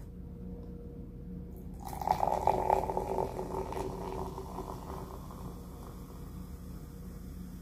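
Soda poured from a can into a glass, starting about two seconds in: a splashing, fizzing pour that is loudest at first and then slowly eases off as the glass fills.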